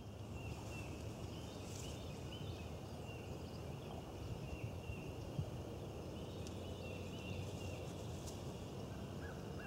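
Quiet outdoor ambience: a steady low rumble with faint, high, short chirping calls repeating throughout.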